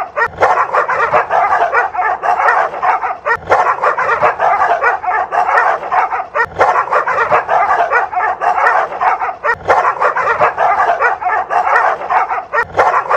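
Dogs barking at each other without pause, a dense, rapid run of overlapping barks and yips.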